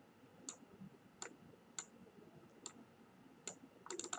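Faint, sharp single clicks of a computer mouse about once a second, with a quick run of clicks near the end.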